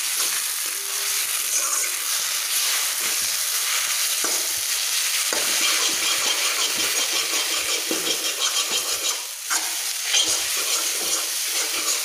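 Chowmein noodles and a cracked egg sizzling and frying in a hot pan while a spatula stirs and tosses them, scraping through the noodles with occasional knocks against the pan.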